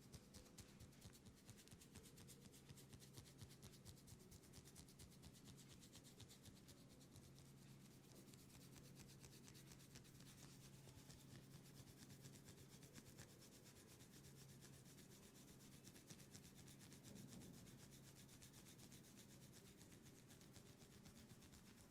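Faint, continuous rubbing of hands massaging oiled skin, with a low steady hum underneath.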